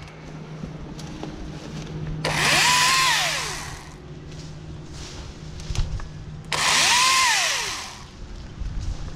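Husqvarna T536LIXP battery chainsaw making two short cuts through leafy branches. Each time the electric motor whines up to speed, holds for about a second while the chain cuts, then winds down.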